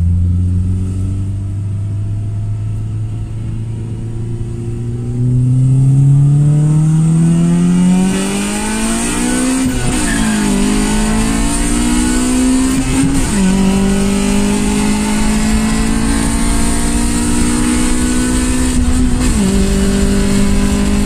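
Car engine heard from inside the cabin, accelerating through the gears. Its pitch climbs and drops back at gear changes about halfway through and again a few seconds later, then holds steady at a cruise, with one more shift near the end.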